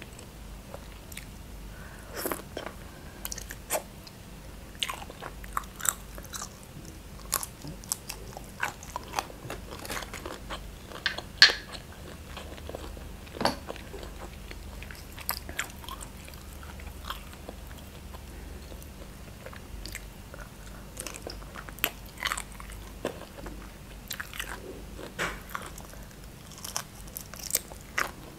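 Eating sounds: biting and chewing cooked shrimp dipped in sauce, with irregular small clicks and smacks of the mouth, the sharpest about eleven seconds in.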